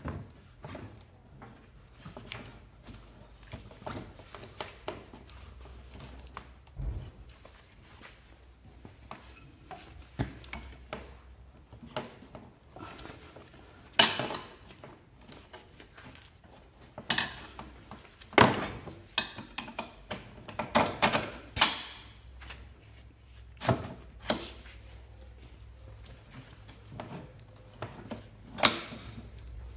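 Irregular clicks, clinks and knocks of hands handling tools and parts on a scooter, with a cluster of sharper knocks around the middle and one more near the end.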